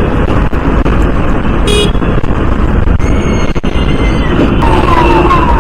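Riding noise from a Honda CD 110 motorcycle in city traffic: a steady rush of wind and road noise over the bike's engine. Another vehicle's horn sounds with falling tones near the end.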